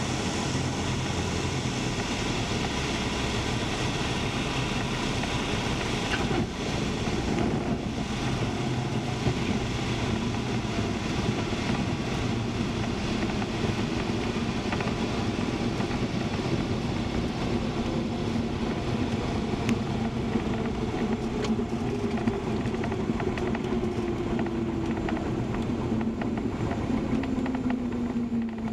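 Cessna 172's engine running at idle power with steady air and runway noise as the plane lands and rolls out on the runway. Over the last several seconds a tone falls slowly in pitch as the plane slows.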